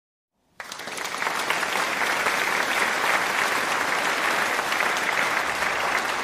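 Applause from a crowd, a dense, steady clapping that starts about half a second in after a brief silence.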